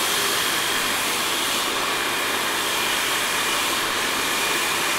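Ultima 5000 Pro hair dryer running steadily on medium speed and medium heat, blowing through its perforated wand attachment: an even rush of air with a faint high whine.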